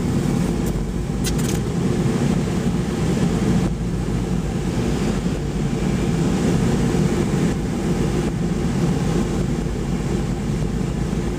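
Car driving, heard from inside the cabin: steady low engine and road noise, with a few short clicks about a second in.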